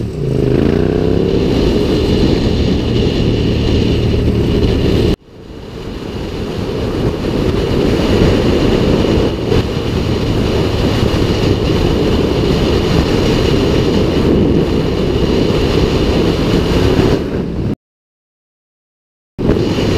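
Motorcycle ridden with the microphone on the rider's helmet. The engine pitch rises and falls through the first second, then heavy wind rush over the microphone takes over. The sound cuts off abruptly about five seconds in and builds back up, and drops to silence for about a second and a half near the end.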